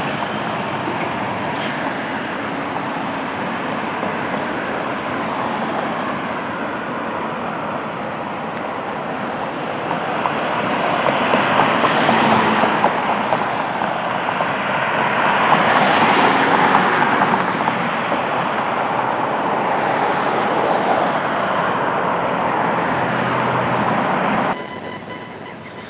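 Road traffic noise: a steady rush of passing cars, swelling twice as vehicles go by, then dropping off suddenly near the end.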